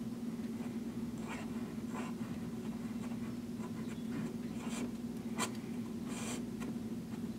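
Flexible 14k gold nib of a vintage Waterman 754 fountain pen scratching across Rhodia paper in short, uneven strokes as cursive script is written, over a steady low hum.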